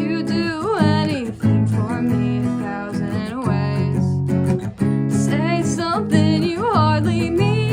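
Acoustic guitar strumming chords, with a voice singing swooping, wavering notes over it about every three seconds: a rough home demo of a song.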